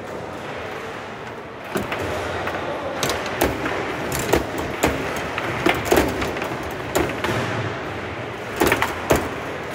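Foosball rally: the ball being struck by the plastic players and knocking around the table, with rods clacking, in a dozen or so sharp, irregular knocks, loudest in a quick cluster near the end.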